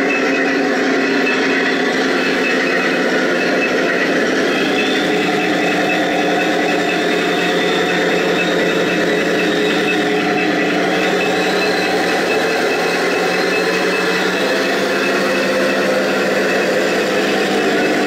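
Remote-control model tank driving, its sound unit playing a steady simulated tank engine through its speaker. A thin high whine comes in for a few seconds at a time, twice.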